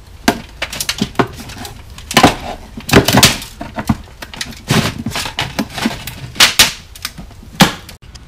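Irregular sharp knocks and clatter of a pressure washer's hard plastic fuel tank and frame being handled and worked by hand, about a dozen loud hits spread unevenly.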